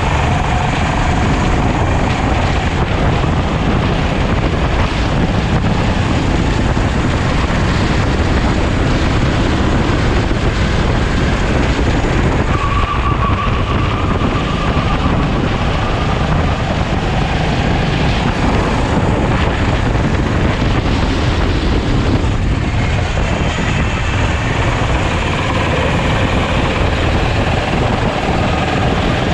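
Sodi rental kart's engine running at racing speed, heard from an onboard action camera. Its pitch shifts up and down as the driver lifts and accelerates.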